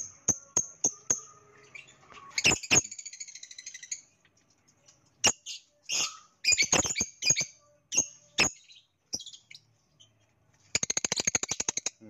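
Lovebird chirping: sharp, high single chirps at irregular intervals, then a fast rattling run of chirps about a second before the end.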